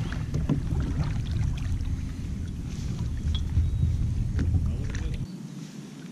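Kayak paddle strokes: the blades dipping and pulling through the water with small splashes and drips. Under them runs a low rumble that drops away about five seconds in.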